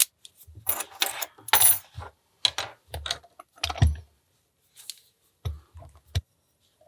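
Metal clinking and rattling as a padlock and lock picks are handled, with irregular sharp clicks and a few low knocks against the table.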